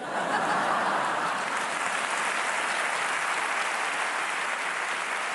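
Theatre audience applauding after a punchline: dense clapping that swells in quickly and then holds steady, easing slightly near the end.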